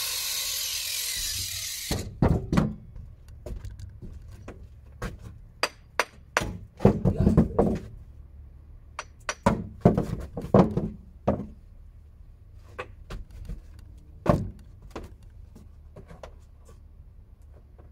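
A power tool runs and stops about two seconds in, followed by a series of irregular sharp knocks and thuds of hand work, clustered between about five and eleven seconds and thinning out near the end.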